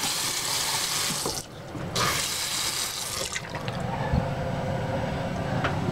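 Moen bathroom faucet running into the sink basin, shut off briefly about a second and a half in, then running again for about another second and a half before it stops. A steady hum from the bathroom exhaust fan, which runs with the lights, continues underneath.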